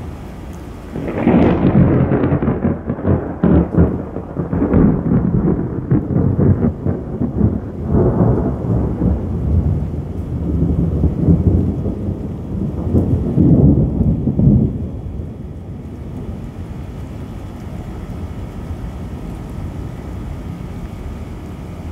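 Rolling thunder that breaks in sharply about a second in. It rumbles in several swelling waves for roughly fourteen seconds, then fades away.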